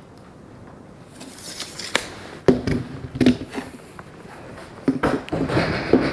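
Felt-tip marker scratching across an OSB board as a straight line is drawn along a square, with several sharp knocks as the square is handled and set down.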